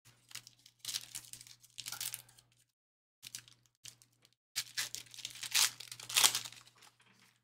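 Trading-card pack wrappers being torn open and crinkled by hand, in two bouts, the second longer and louder.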